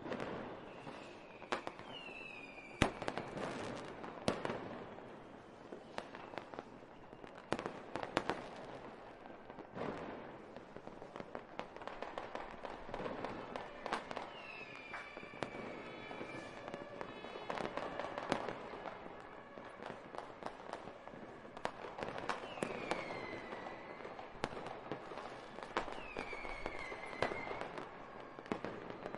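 Recorded fireworks: irregular sharp bangs and crackling, with several short whistles that fall in pitch.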